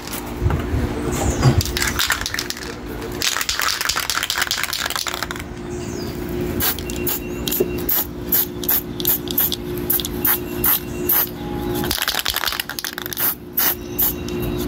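Aerosol spray-paint can: its mixing ball clattering as the can is handled and shaken, then spraying paint through a cardboard stencil in a run of short hisses, about two a second, from about seven seconds in.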